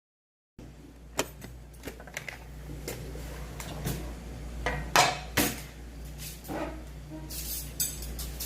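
Spoon and chopsticks clinking and tapping against bowls and side-dish plates at a meal: a string of sharp clinks over a low room hum, the loudest about five seconds in.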